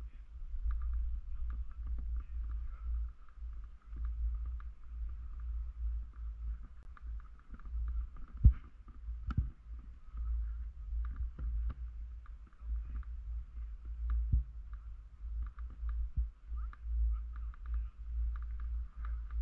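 Uneven low rumble of wind buffeting the microphone on a moving fixed-grip chairlift, over a faint steady hiss. Scattered clicks and knocks come through, the sharpest about eight and a half seconds in.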